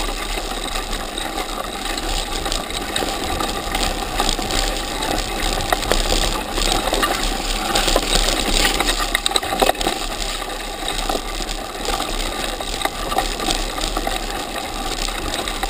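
Mountain bike clattering down a rough, muddy forest trail, heard through a camera fixed to the bike: a continuous jumble of clicks, knocks and rattles from the bike jolting over the ground, with tyre noise underneath.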